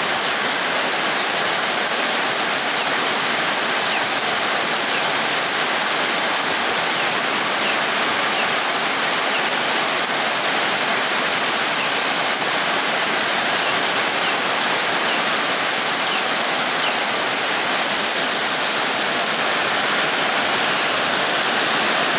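Heavy rain pouring steadily onto leaves and muddy ground: a dense, unbroken hiss.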